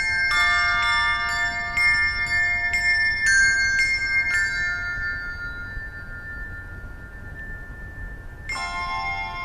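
Handbell choir ringing a carol: bells struck about twice a second, then left to ring and fade for several seconds before a fuller chord is rung near the end.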